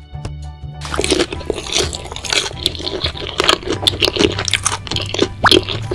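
Cartoon eating sound effects: rapid, dense crunching and squishing that starts about a second in, over background music.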